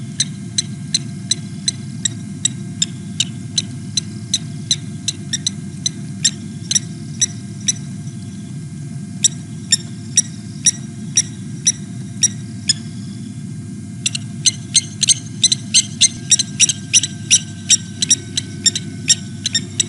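Blacksmith lapwing alarm calls: sharp, metallic 'tink' notes repeated two to three times a second, with brief pauses and a faster run in the last six seconds. The calls are the bird's alarm at a predator at its nest. A steady low hum runs underneath.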